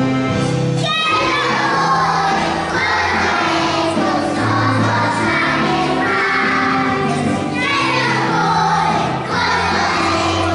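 A group of young children singing a song together over instrumental backing music with a steady bass line; new sung phrases start about a second in and again near eight seconds.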